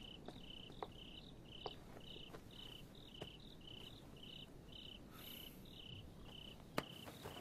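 Faint cricket chirping in a steady rhythm of about two chirps a second, with a few soft clicks and one sharper click near the end.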